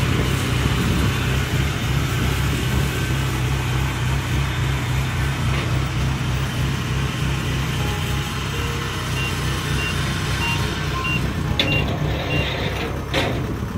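Kubota DC-70 combine harvester's diesel engine running steadily as the machine moves on its rubber tracks. In the second half, a series of short, evenly spaced high beeps sounds over it.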